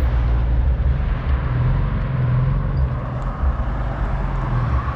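Car engines and road traffic, a steady low rumble with an engine hum that swells and eases.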